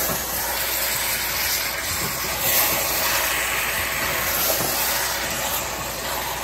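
Curried butternut squash sizzling in a stainless steel pot as it is stirred, a steady hiss. The squash is cooking in its own released water.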